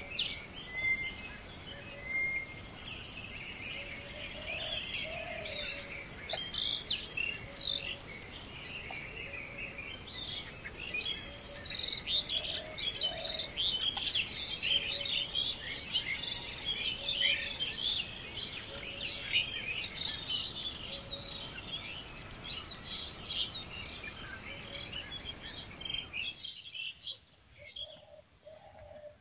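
A dense chorus of many small birds chirping at once, with a lower call repeating about once a second underneath, over a steady hiss. About three seconds before the end, the hiss cuts out and the chirping turns fainter.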